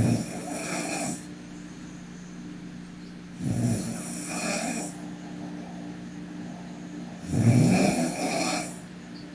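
A sleeping young woman snoring: three snores, one about every three and a half to four seconds, each lasting about a second and a half.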